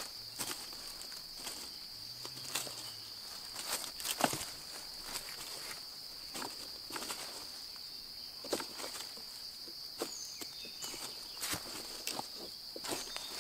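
Steady high-pitched drone of insects, with irregular crackling rustles of dry leaf litter, loudest about four and eight and a half seconds in.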